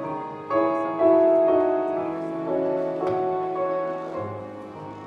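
Instrumental accompaniment playing between sung verses, with held chords that change about once a second and no voice.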